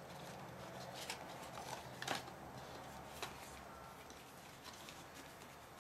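Faint handling noises from unboxing a keyboard: a few light clicks and rustles of packaging, the loudest about two seconds in, over a low steady hum.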